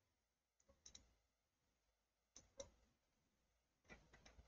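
Near silence with a few faint computer mouse clicks: a pair about a second in, two more past the middle, and a short cluster near the end.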